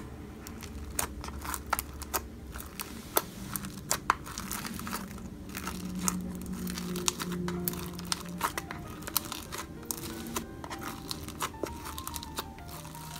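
Clear glitter slime with sequins being squeezed and poked by fingers in a plastic container, making many irregular sharp clicks and crackles. Soft background music plays underneath.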